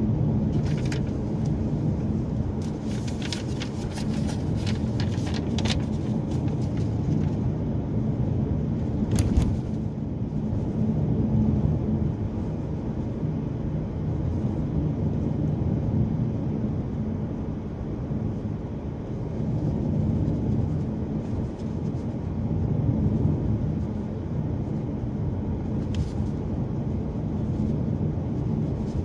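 Steady low rumble of tyre and engine noise inside a car's cabin while driving. A few light clicks come between about three and six seconds in, and a sharper click comes about nine seconds in.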